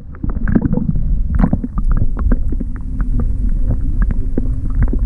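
Muffled underwater sound: a low rumble of moving water with many small clicks and pops and a faint steady hum underneath.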